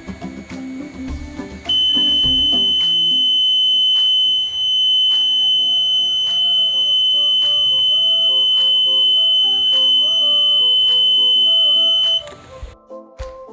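Electronic alarm buzzer sounding one loud, continuous high-pitched tone, starting about two seconds in and cutting off suddenly about a second before the end. It is a rain alarm: water bridging the sensor wires switches on the BC547 transistor circuit, and wiping the sensor dry stops it. Background music plays underneath.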